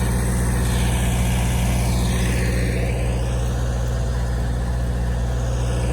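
Skid steer's diesel engine running at a steady speed, an even low drone.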